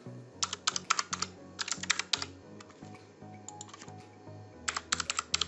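Computer keyboard typing in several short bursts of rapid keystrokes with pauses between them, over background music.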